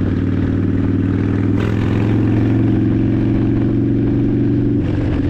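Harley-Davidson Dyna Fat Bob's V-twin engine running under way at a steady cruise, its note shifting slightly about a second and a half in.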